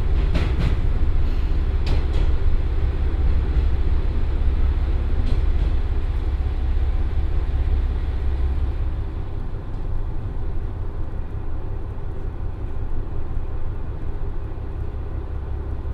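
Cabin running noise of a JR Shikoku 1500 series diesel railcar (Komatsu diesel engine) decelerating toward a station: a steady low rumble of engine and wheels on rail, with a few light clicks in the first couple of seconds. The low rumble drops away about nine seconds in and the sound grows quieter as the train slows.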